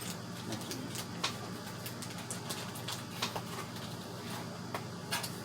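Scattered light clicks and taps from handling PC part packaging and paperwork, over a steady low hum.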